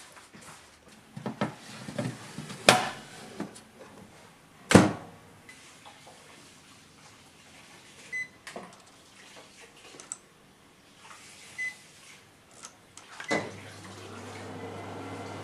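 Sharp Healsio AX-HC2 oven being loaded and started: a few sharp knocks and clatter, two short beeps from its control panel, then the oven begins running with a steady hum near the end, set to bake at 230 °C.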